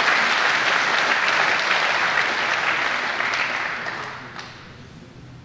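An audience applauding, then dying away about four seconds in.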